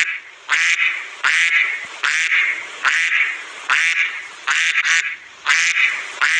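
A duck quacking over and over in a steady series, about three quacks every two seconds.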